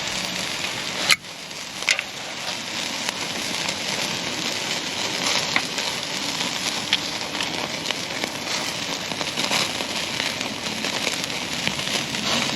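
Ribeye steak searing on a very hot grate over a charcoal fire: steady sizzling with scattered crackles and a sharp snap about a second in.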